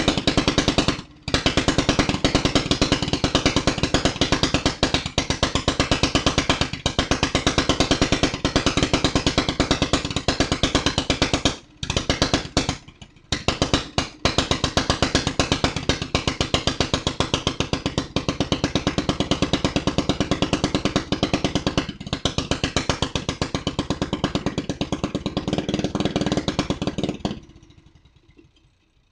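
A go-kart's small gas engine running loud and fast, a rapid even stream of firing pulses. It drops out briefly about a second in and twice around the middle, then cuts out and dies away near the end.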